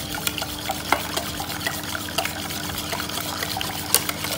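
Wire whisk beating milk and curd in a stainless steel bowl: steady liquid churning with frequent irregular clicks of the wires against the steel. The mixture is being beaten to a froth so that no lumps are left.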